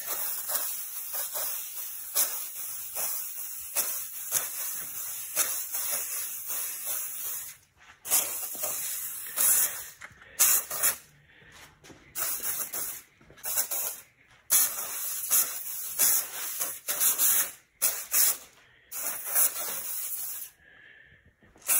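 Preval aerosol paint sprayer hissing as it sprays paint: one long steady spray for the first seven seconds or so, then a string of short on-off spurts. The sputtering is put down by the painter to the jar being too low and air getting in when it is tilted.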